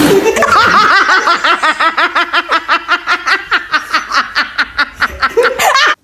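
A long run of rapid, laughter-like calls, about six pulses a second, that cuts off suddenly near the end.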